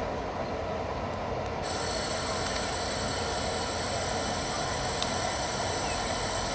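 Taiwan Railways electric multiple unit pulling slowly into a station platform, a steady rumbling run. From about one and a half seconds in, a set of steady high-pitched whining tones rides over it and cuts off near the end.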